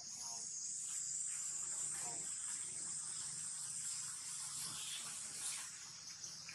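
Steady high-pitched insect chorus, with a few faint short chirps about a second and two seconds in.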